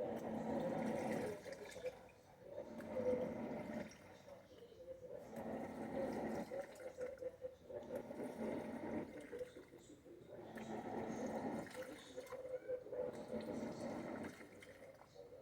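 Panasonic 12 kg top-load washing machine churning water and clothes, its pulsator reversing back and forth so the water swishes in surges about every two and a half seconds.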